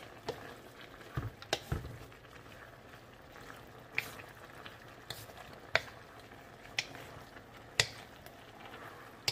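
Wooden spatula stirring vegetables in an aluminium wok, with sharp taps of the spatula against the pan every second or two, over a faint sizzle of the simmering sauce.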